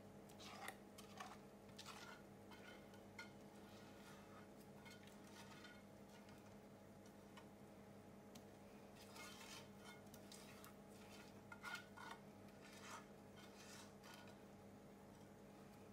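Faint scraping and light taps of a silicone spatula against a saucepan as thick cake batter is scraped out into a silicone mould, in two spells near the start and past the middle, over a low steady hum.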